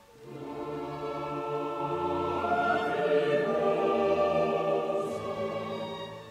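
Classical choral music with orchestra, a choir holding long sustained notes that swell over the first few seconds and ease off near the end.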